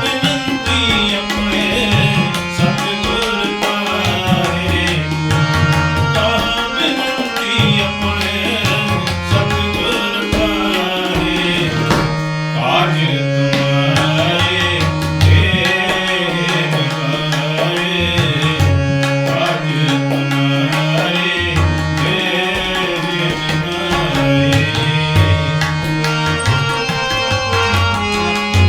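Instrumental kirtan music: tabla playing a steady rhythm under a sustained melody, typical of a harmonium.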